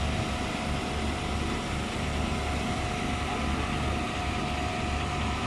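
Diesel engine and pumping gear of a truck-mounted concrete boom pump running steadily during a slab pour, with a low throb that comes and goes about once a second.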